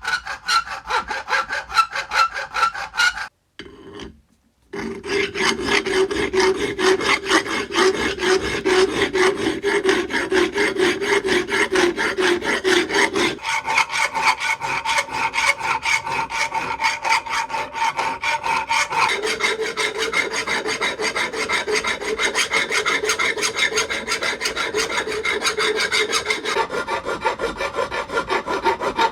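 Rapid back-and-forth hand abrading strokes on a rusty metal hammer head, steady and rhythmic, with a ringing metallic tone under the strokes. About three seconds in the sound breaks off for about a second, and later the pitch of the ring shifts a few times at cuts.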